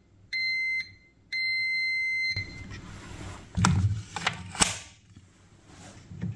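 Electronic beeper sounding three times at one steady high pitch: two short beeps, then one of about a second. A few sharp clicks and knocks follow in the second half.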